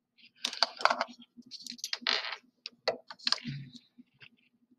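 A wooden ruler and pen being handled on paper on a desk: an irregular run of taps, clicks and short scrapes as the ruler is laid down and shifted into place. A faint steady hum runs underneath.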